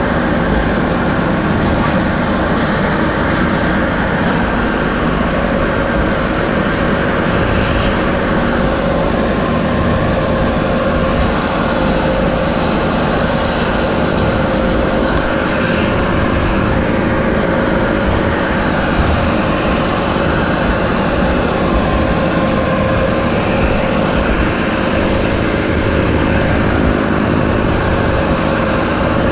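An engine running steadily at a constant speed, with a low rumble and a steady hum.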